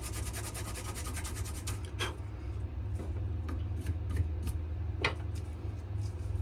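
Sandpaper rubbing on a wenge-and-maple knife handle in quick, even strokes, stopping about a second and a half in; a few light clicks and taps follow. A steady low hum runs underneath.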